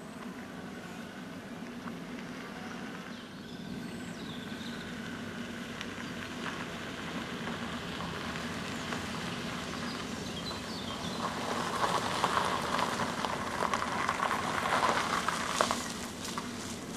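A Renault Clio hatchback driving slowly on a gravel drive, its engine running steadily. The crunch and crackle of the tyres on the gravel grows louder about eleven seconds in, then falls away near the end.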